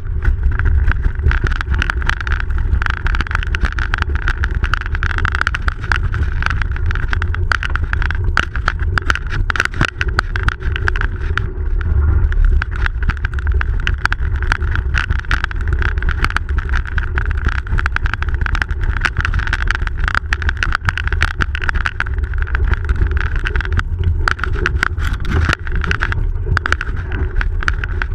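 Bicycle rolling along a snow-covered road, picked up by a camera mounted low on the bike: a steady low rumble of tyre and wind noise with constant small rattles and clicks.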